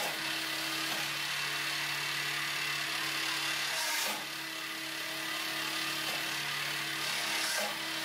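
Hydraulic forging press running with a steady hum and hiss as it squeezes a red-hot steel strip flat. The sound dips and breaks off briefly about four seconds in, then carries on.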